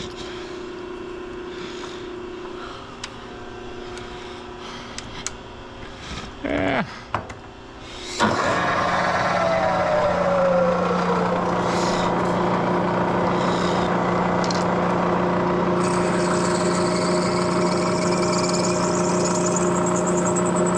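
Bridgeport Series I 2 HP vertical milling machine's spindle switched on about eight seconds in and then running steadily, with a tone that falls in pitch for a couple of seconds after it starts. Before that there are soft tool-handling clicks, and a faint high hiss joins the running mill near the end.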